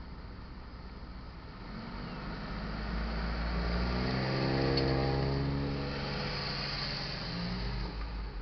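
A car engine accelerating as the vehicle pulls across the railroad tracks and passes close by, building from about two seconds in, loudest around the middle, then fading.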